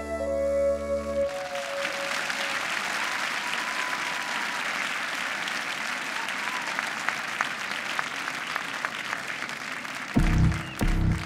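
Held musical tones end about a second in, and a large crowd applauds steadily for several seconds. Near the end, music starts with a loud, heavy low beat.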